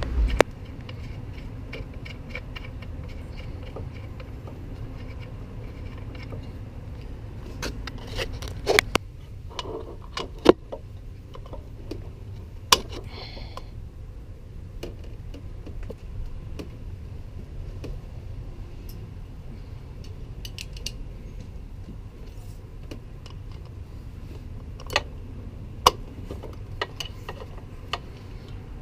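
Metal hand tools clinking and knocking against bolts and engine parts as fasteners on the engine mount are worked loose, in sparse sharp clicks over a steady low hum, with a quick cluster of clicks about a third of the way in.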